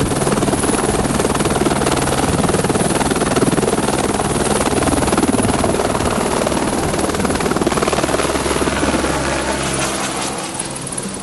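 Helicopter rotor beating steadily close by, a fast even thudding with engine noise, growing quieter near the end.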